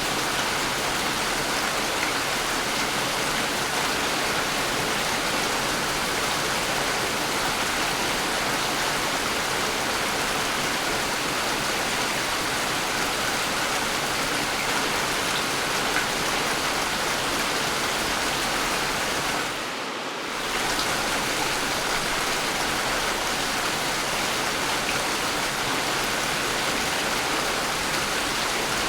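Steady rain falling, an even hiss of water that dips briefly about two-thirds of the way through.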